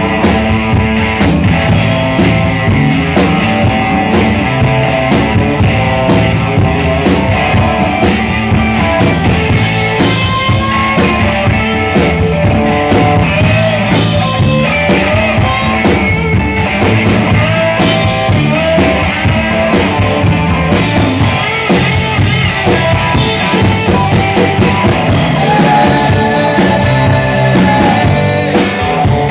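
Live rock band playing an instrumental passage: two electric guitars through amplifiers over a drum kit and bass guitar, with no singing.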